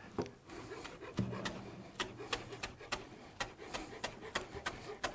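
Quiet, irregular clicks and taps, about two or three a second, with faint rubbing: food being handled and plated with kitchen utensils.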